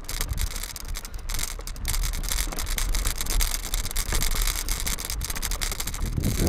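Mountain bike riding on a dirt trail heard through a bike-mounted action camera: a steady low rumble and hiss with a stream of small clicks and rattles from the tyres on the loose ground and the shaking mount.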